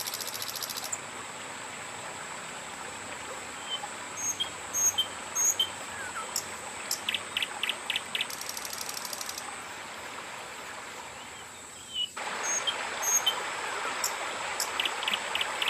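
Riverside outdoor ambience: scattered short bird chirps and a few brief buzzing trills over a steady hiss of flowing water. About twelve seconds in, the hiss abruptly becomes louder and brighter.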